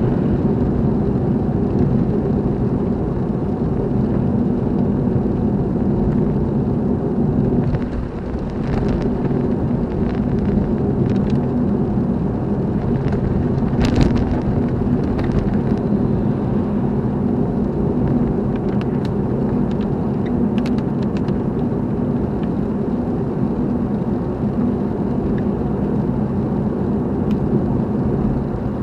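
Steady engine and road noise of a car being driven, with a few faint ticks and one sharper click about fourteen seconds in.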